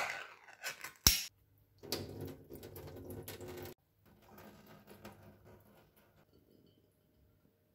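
Metal spoon clinking against a tin can while scooping out canned corn kernels: a few sharp clicks, one loud clink about a second in, then about two seconds of scraping and rattling that stops abruptly, followed by fainter rattling that fades away.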